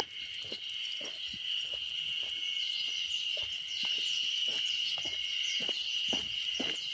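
Insects droning steadily in one high-pitched chorus, with footsteps on pavement about twice a second.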